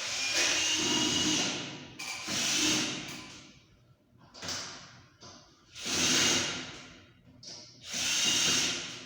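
Power drill/screwdriver driving screws to fix an air conditioner's wall mounting plate, running in five bursts of a second or so each with short pauses between.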